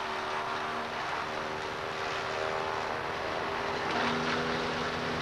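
Tractor-driven PTO wood chipper running: a steady droning hum with a dense rushing noise over it.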